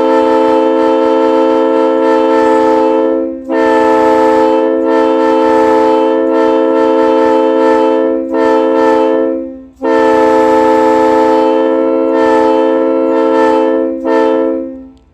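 Locomotive air horn blown in a horn show: several tones sounding together as one steady chord, held in a string of long blasts with brief breaks between them, one of them short, stopping at the end.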